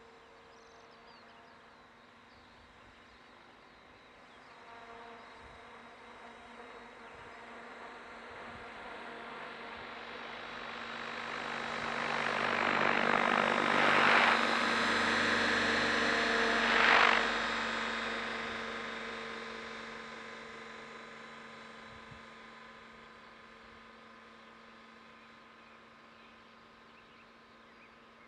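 Mikado Logo 550SX electric RC helicopter flying a pass: its steady rotor and motor hum grows louder as it comes close, peaks twice sharply around the middle, then fades as it flies away.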